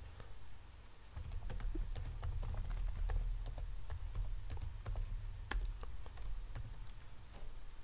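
Typing on a computer keyboard: a run of irregular light key clicks, starting about a second in, over a low steady hum.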